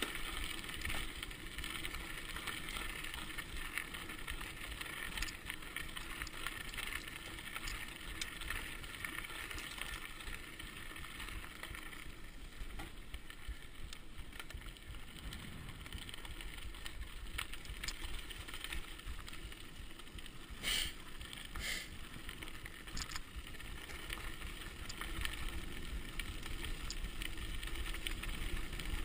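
Mountain bike rolling fast downhill on a gravel track: steady tyre noise and wind over the microphone. Two sharp knocks about a second apart come roughly two-thirds of the way in.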